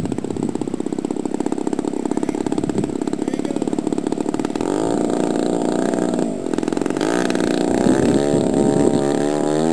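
Piston engine of a radio-controlled scale P-51 Mustang running with a fast, even firing rhythm at part throttle. About halfway in the throttle opens and the pitch climbs and wavers as the model accelerates down the runway on its takeoff roll.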